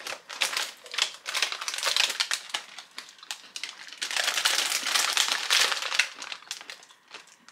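Shiny gold snack wrapper crinkling and rustling as it is handled, a dense crackle that is loudest about four to six seconds in.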